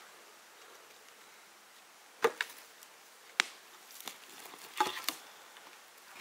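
A few sharp, irregular knocks against a quiet background, the loudest about two seconds in, then others about a second and two and a half seconds later.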